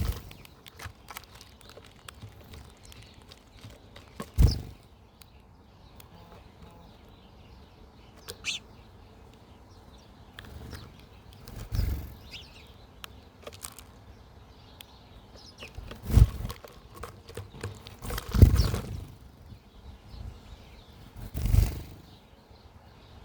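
Wild birds at a backyard feeder: scattered soft pecks and ticks with a brief high chirp, broken by five louder rushing wing flutters close to the microphone.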